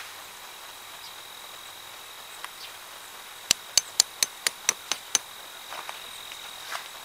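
A tent stake being hammered into the ground: about eight sharp, evenly spaced strikes, roughly four a second, each with a ringing edge. A steady high insect drone runs underneath.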